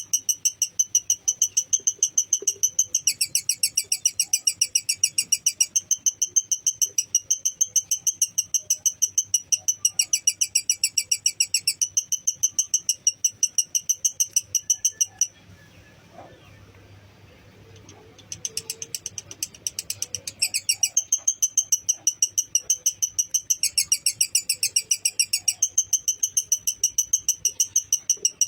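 Lovebird 'ngekek' song: a long, fast, high chattering trill of about six notes a second. It breaks off for about three seconds midway, then resumes, softer at first.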